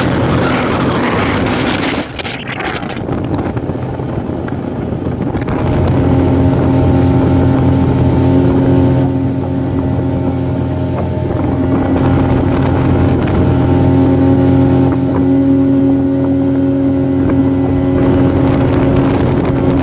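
Motorboat engine running steadily as the boat moves across the lake. A rush of wind and water on the microphone dominates the first few seconds, then the engine's steady drone comes through clearly from about six seconds in.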